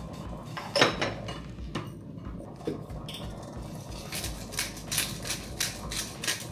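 Kitchen utensils knocking and clinking against pots and dishes while cooking: one sharp knock about a second in, then a run of quick taps, about three a second, in the second half.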